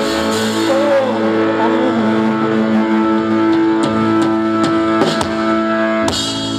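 Live band playing the instrumental ending of a song after the last sung line, holding chords that break off about six seconds in.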